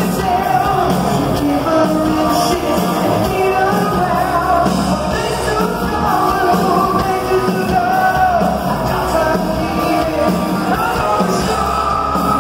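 Live glam metal band playing loud: electric guitar, bass and drums with a lead vocal, and a long held note near the end.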